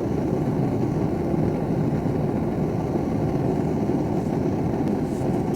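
A forge running: the steady, unbroken rushing noise of its burner.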